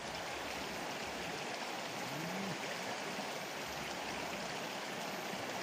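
Steady rush of a flowing river, an even running-water noise.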